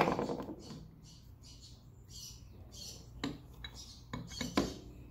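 Hard clicks and taps of a bow sight and its mounting hardware being handled on a sight-leveling jig: one sharp click with a brief ringing decay at the start, then a few lighter clicks near the end.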